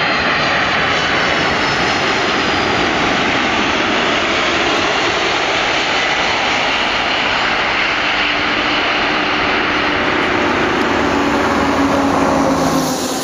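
Boeing 747-400ER landing: loud, steady noise from its four jet engines, with a high whine that falls slowly in pitch as it comes over on final and touches down. Later in the rollout a lower engine hum comes in and grows.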